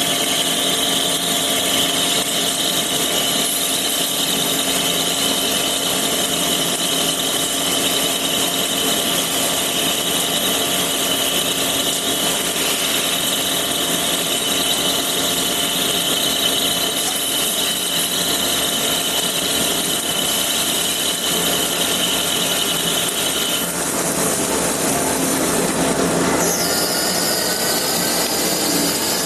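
Lathe running, a steady machine noise with a high whine that stops about 24 seconds in; rising whines follow near the end.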